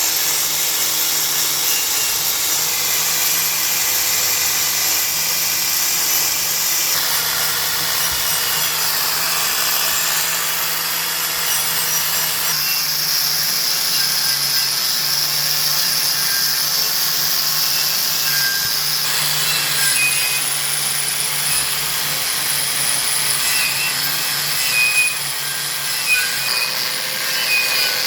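Power tool spinning a wire wheel, scrubbing grime off the steel mating surface of a semi-truck wheel hub. A steady, loud, rasping noise whose tone shifts a few times as the wheel moves across the surface.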